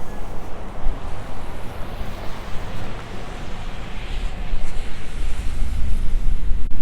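Wind buffeting a lapel microphone, a low rumbling noise that gusts and grows louder in the second half.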